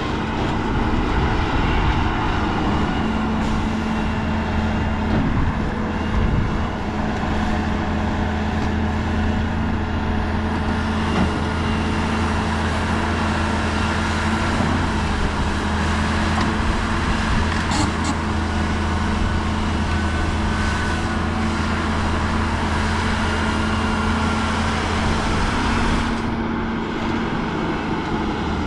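Heavy diesel earthmoving machinery running steadily, a continuous low engine drone.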